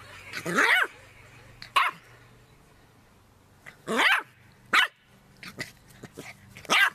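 Fluffy puppy barking in short, high-pitched yips, about half a dozen spaced irregularly, with a couple of louder ones near the start and others later on.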